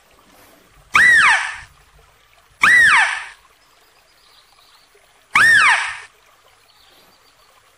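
Philippine mouse-deer calling: three short, loud calls, each rising and then falling in pitch, coming at uneven gaps of about two to three seconds.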